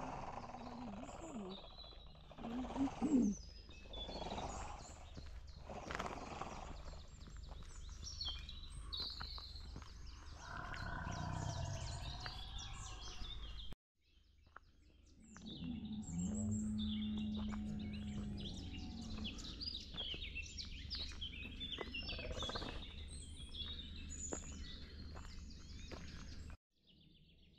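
Small birds chirping and calling over steady outdoor background noise, with a few knocks and rustles. A steady low hum sounds for a couple of seconds past the middle, and the sound cuts out briefly twice.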